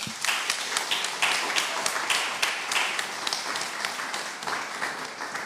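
Audience applauding, starting all at once and slowly dying down.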